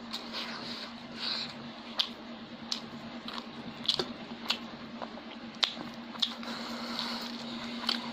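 Eating rice and curry with the bare hand from a steel plate: fingers squelch and knead the wet rice while the mouth chews wetly. Sharp smacks and clicks come irregularly, about one a second.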